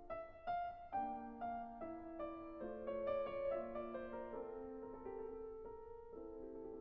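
Background music: soft piano playing a slow melody.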